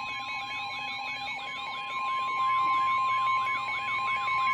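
Emergency alert tones sounding for a tornado warning. A steady alert tone holds under a siren-like sweep that rises and falls about twice a second. The steady tone gets louder about two seconds in.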